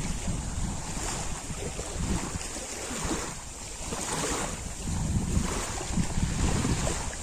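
Lake water splashing and lapping, rising and falling in irregular swells, with wind buffeting the microphone.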